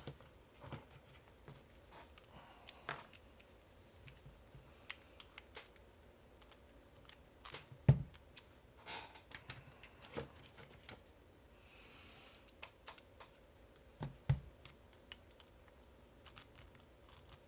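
Irregular light clicks and taps of small metal tools and a padlock being handled, as Allen keys are picked out and tried on the lock's security bolt. A sharper knock comes about halfway through, two more near the end, and a brief scraping rustle just before them.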